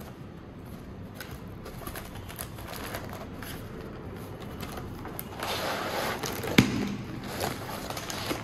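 Trading-card box being opened by hand: scattered rustles and clicks of packaging, then a louder stretch of rustling about five seconds in with one sharp snap near its middle, over steady background noise.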